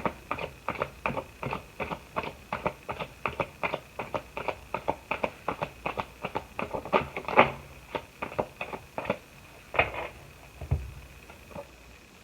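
Tarot deck being shuffled by hand: a steady patter of cards slapping together, about three a second. It stops about ten seconds in, after a couple of louder slaps and a soft thump.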